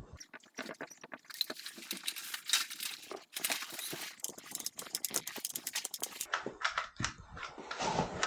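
Dense crackling and rustling with many small clicks, like material being handled, crumpled or peeled. The sound changes abruptly about a second in and again around six seconds.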